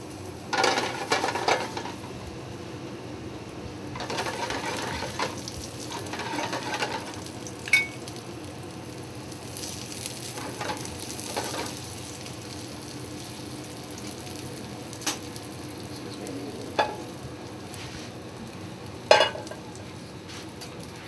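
Floured halibut pieces sizzling in a very hot frying pan, the sizzle swelling louder in spells as pieces are laid in and turned. Metal tongs click sharply against the pan a few times, loudest about eight seconds in and near the end.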